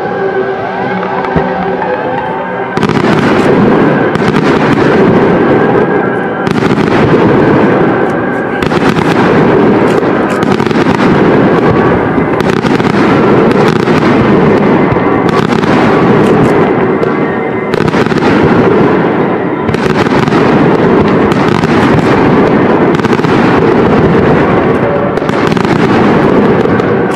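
Aerial fireworks display: a dense barrage of shell bursts and crackling starts about three seconds in and keeps going, with only brief lulls every few seconds. Music with held tones plays underneath throughout.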